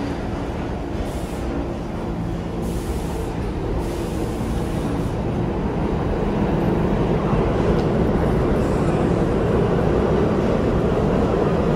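New York City Subway train running, a continuous rumble with a steady motor hum, growing steadily louder.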